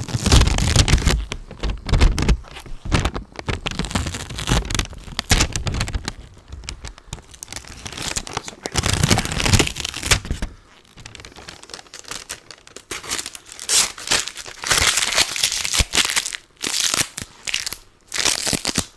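Sticky adhesive sheet of a lint roller being pulled and peeled back, a crackling, tearing noise. It comes with low thumps through the first half, then in lighter bursts of crackle.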